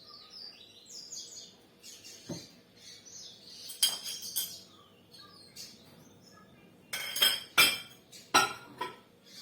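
Sharp clinks and knocks of a mug and the microwave being handled: one about two seconds in, a few around four seconds, and a louder run between seven and nine seconds in. Birds chirp in the background.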